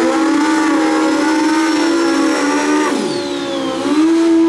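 Pro Street drag motorcycle engine held at high revs through a burnout as the rear tyre spins in smoke. The revs drop sharply about three seconds in, with a high whistle sliding down, then climb again near the end.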